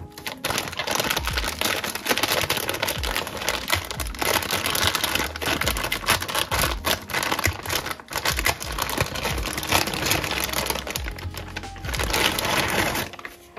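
Thin plastic packaging bag crinkling and rustling in a dense run of small crackles as hands pull it open around a stack of embroidered patches, over background music. The crinkling stops shortly before the end.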